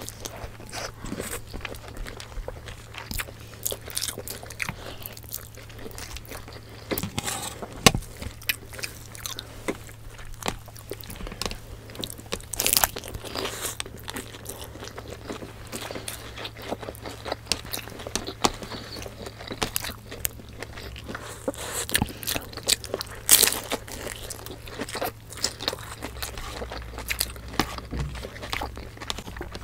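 Close-miked biting and chewing of crispy fried spring rolls (lumpia), the wrappers crunching in many irregular crackles, over a faint steady low hum.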